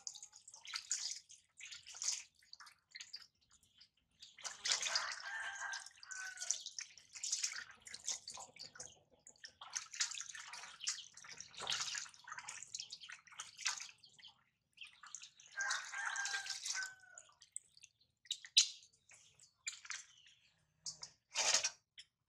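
Water splashing and trickling into a stainless steel bowl as a baby monkey is washed by hand, in irregular bursts with short pauses between.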